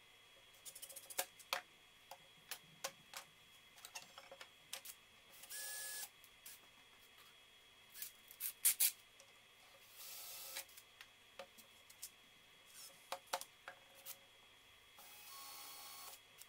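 Scattered clicks and knocks of tools and clamps being handled on a workbench, with three short whirs of a cordless drill-driver, about five, ten and fifteen seconds in.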